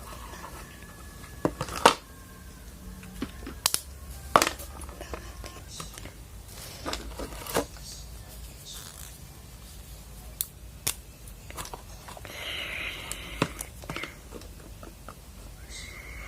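Stationery and packaging being handled: a string of sharp clicks and taps, the loudest about two seconds in, with a short rustle of tearing or crinkling packaging about twelve seconds in.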